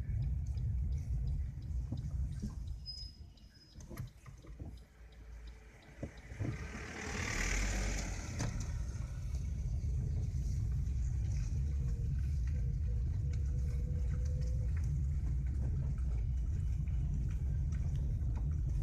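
Wind buffeting a phone microphone: a heavy, uneven low rumble that eases off for a few seconds and then returns steadily, with a brief hissing swell about seven seconds in.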